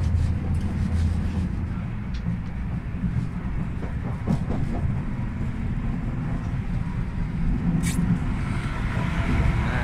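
Steady low rumble inside the passenger carriage of an Afrosiyob (Talgo 250) high-speed train running at about 200 km/h. A few light clicks are heard, and a brief hiss comes about eight seconds in.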